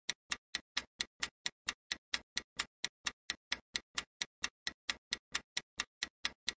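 Steady clock-tick sound effect marking a quiz countdown timer: sharp, evenly spaced ticks, about four to five a second.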